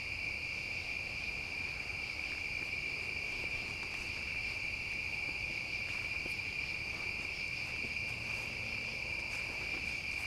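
A chorus of crickets trilling at night, a steady high-pitched tone.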